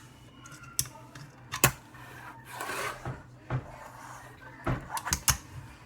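Fingerboard tricks on a stapler: sharp clacks of the small deck popping off and landing, about six in all. Near the middle comes a short scraping grind of the trucks sliding along the stapler.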